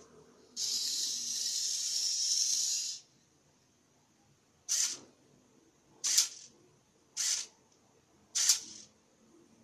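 Small servo motors on a remote-controlled robot car's gripper arm whirring: one steady high-pitched whir of about two and a half seconds as the arm swings round, then four short whirs a second or so apart as the gripper moves.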